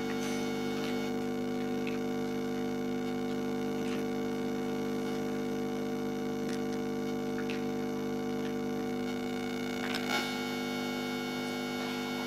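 Steady electrical hum made of several steady tones, with a few faint clicks of plastic toy building blocks being handled and pressed together, a slightly louder one near the end.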